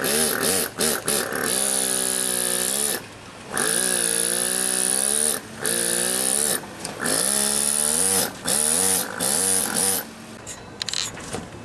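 Pneumatic carving hammer (air chisel) chattering against stone in runs of a few seconds with brief pauses, its pitch wavering up and down. Near the end it stops, leaving light scattered taps.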